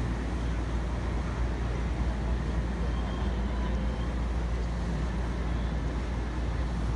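Steady harbour-front ambience: a constant low rumble with an even hiss above it and no distinct events.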